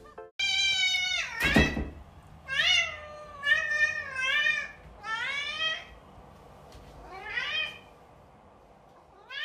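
Long-haired cat meowing repeatedly, about seven separate meows with rising and falling pitch, the loudest a sharp downward-sliding cry about one and a half seconds in.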